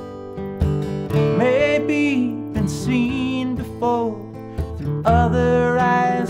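Flat-top acoustic guitar strummed in steady chords, with a man singing over it in phrases.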